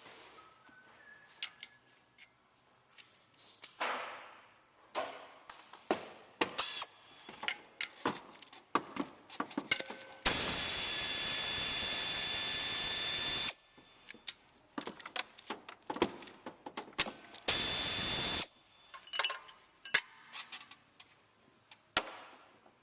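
Power tool run twice, once for about three seconds and later for about one second, spinning out the engine bracket bolts, amid clinks and knocks of tools and parts on metal.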